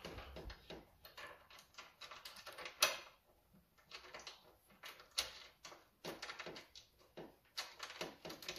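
Faint, scattered clicks, knocks and rattles of a lawnmower's handle being fitted and fastened, with one sharper knock about three seconds in.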